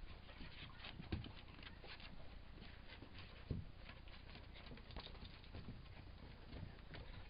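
Dogs' paws and claws scrabbling and pattering on wooden deck boards as a collie and a puppy play-wrestle, with two louder thumps, about a second in and halfway through.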